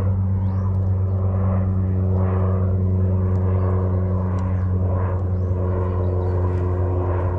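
Steady low engine drone, holding one pitch throughout, with a few faint bird calls over it.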